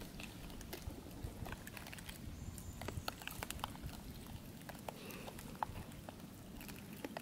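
Faint, scattered light taps and scratches of a baby monkey's hands on concrete ground.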